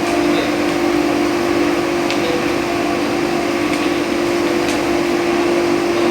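Food roaster machine running: a steady motor hum with a noisy whir, and a few faint light clicks.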